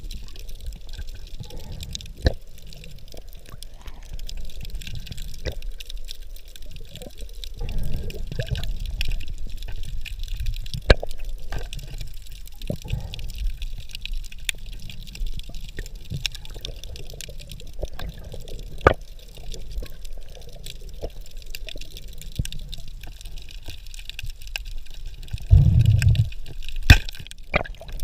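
Underwater sound of the sea as heard by a submerged camera: a steady muffled watery rush, scattered sharp clicks, and a few louder low swishes of water movement, the strongest shortly before the end.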